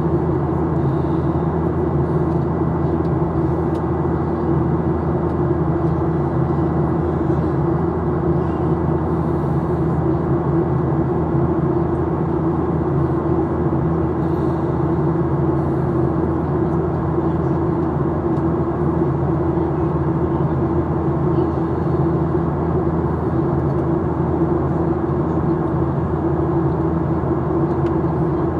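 Steady cabin noise inside a Boeing 737-800 in flight: air rushing along the fuselage and the hum of its CFM56-7B engines, with a few steady low tones under it.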